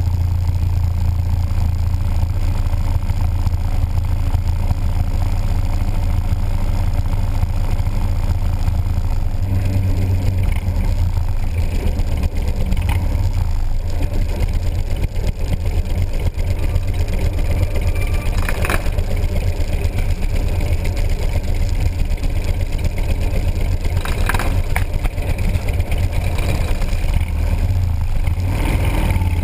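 Motorcycle engine running steadily at low riding speed, a deep constant drone, with a few brief clicks or knocks partway through.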